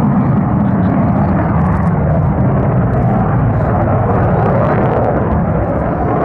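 Two J79 turbojet engines of a JASDF F-4EJ Kai Phantom II in a display flight overhead, a loud, steady, deep jet noise.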